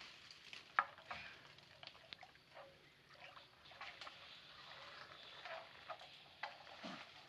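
Faint splashing and trickling water with scattered small knocks, the sharpest a single knock just under a second in.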